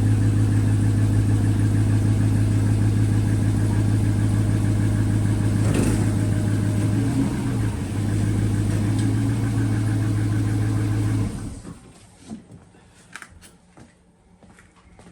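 2016 Dodge Charger's engine idling steadily, then switched off about eleven seconds in, the sound stopping abruptly; a few light clicks and knocks follow.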